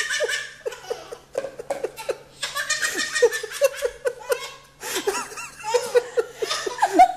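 A baby laughing hard in three bouts of rapid, rhythmic belly laughs, each a quick string of short high-pitched 'ha' pulses, with brief pauses for breath between them.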